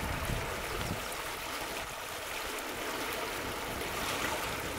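Floodwater rushing and churning, a steady even rush; its low rumble drops away about a second in.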